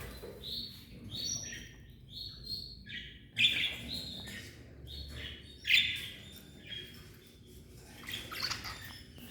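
Small cage birds (a mixed group of cockatiel, budgerigars and canaries) chirping and calling in a string of short calls, with two louder calls about three and a half and nearly six seconds in.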